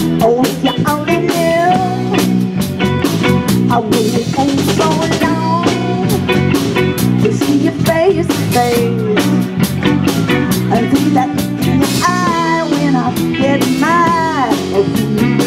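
Live blues band playing: electric guitars, electric bass and drum kit, at a steady level. A lead line slides up and down in pitch over the band about a second in, again around four to five seconds in, and near the end.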